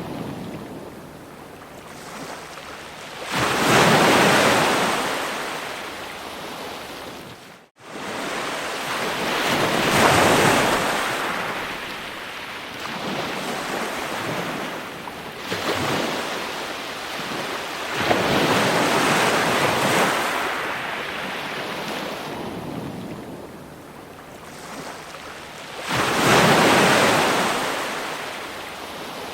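Ocean surf: waves breaking onto the shore in slow surges, each swelling to a loud rushing wash and fading again, about four in the span. The sound cuts out for an instant about eight seconds in.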